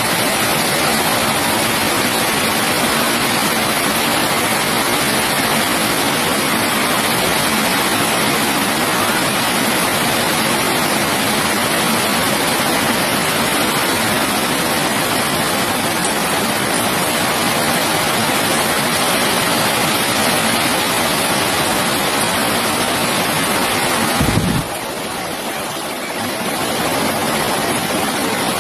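Steady heavy rain, an even hiss spread across all pitches. About 24 seconds in there is a short low thump, and the rain is quieter for a couple of seconds before building back up.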